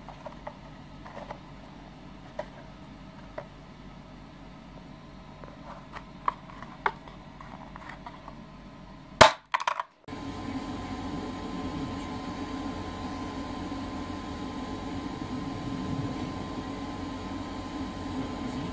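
Thin-walled PETG print flexed in the hand, giving scattered small crinkling clicks, then a loud crack about nine seconds in. After that a self-built 3D printer runs steadily as it prints: a steady mechanical hum with a faint steady whine.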